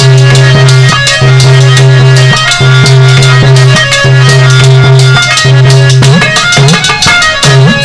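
Instrumental interlude of Indian folk music: a harmonium holding a low note in repeated blocks about a second long, over fast hand-drum strokes and rattling percussion.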